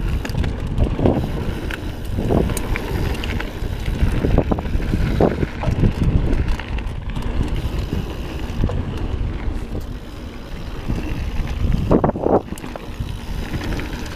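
Wind buffeting the microphone over the rumble of mountain bike tyres rolling on a dirt trail. The rumble swells irregularly, and there are scattered light clicks and rattles from the bike.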